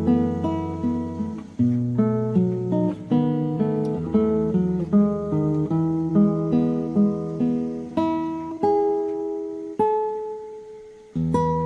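Background music: fingerpicked acoustic guitar playing a gentle chord pattern, one chord left to ring out and fade near the end before the picking starts again.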